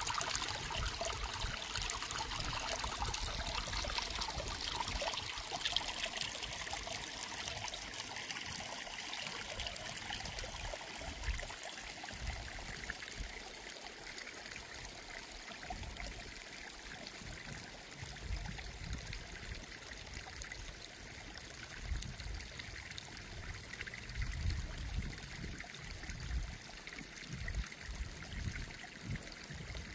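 Small brook trickling over mossy stones and grass, a steady run of water that is strongest in the first several seconds, with irregular low rumbles underneath.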